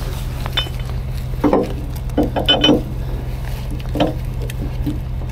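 Metal tow chains and hooks clanking and rattling as they are handled, a handful of sharp clanks with a cluster near the middle, over the steady low hum of an idling truck engine.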